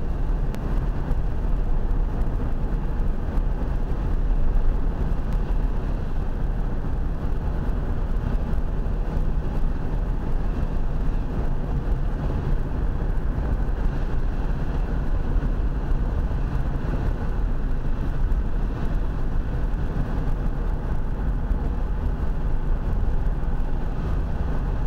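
Car engine and tyre noise heard from inside the cabin as the car drives along: a steady low rumble with no change in pace.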